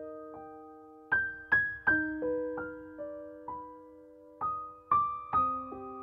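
Background music: a slow, gentle piano melody, its notes struck one or a few at a time and left to ring and fade.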